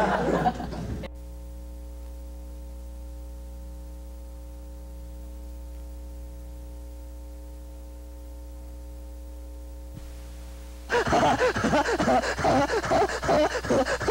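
A steady electrical hum with several fixed tones holds for about ten seconds. About eleven seconds in, a man's frantic screams and gasps start suddenly and repeat several times a second.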